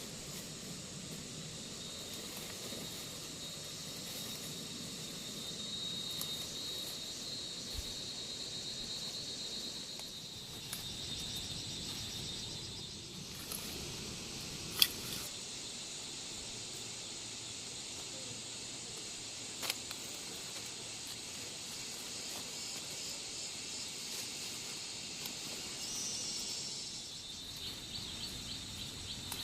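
Outdoor rural ambience: insects trilling steadily and high-pitched, with a few sharp clicks now and then.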